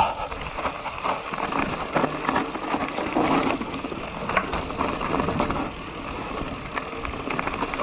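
Mountain bike rolling fast down a dirt and loose-stone singletrack: knobby tyres crunching over gravel, with frequent clicks and knocks from the bike jolting over bumps.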